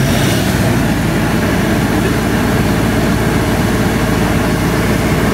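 LS tractor diesel engine running steadily at full throttle during a forced (parked) DPF regeneration, the engine held at high speed to burn the soot out of the diesel particulate filter.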